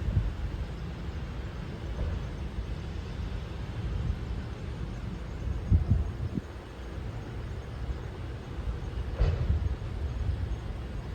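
Outdoor ambience: a steady low rumble with a few louder bumps, at the very start, about halfway through and near the end.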